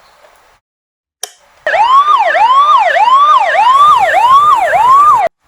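Toy ambulance minicar's electronic siren sounding loud: about six sweeps, each rising in pitch and then dropping back sharply. It comes on after a single click just over a second in and cuts off suddenly.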